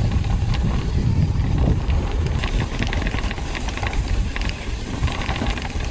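Wind buffeting a ride-along camera's microphone over the low rumble of a mountain bike rolling fast down a dirt trail, with frequent sharp clicks and rattles from the bike and the trail surface.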